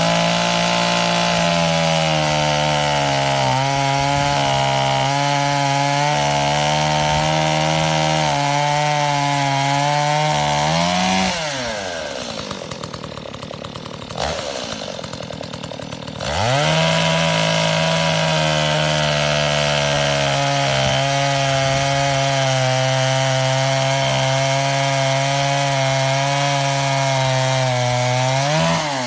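Two-stroke chainsaw held at high revs for about eleven seconds, dropping back to idle for a few seconds, then revved up again and held steady before easing off near the end.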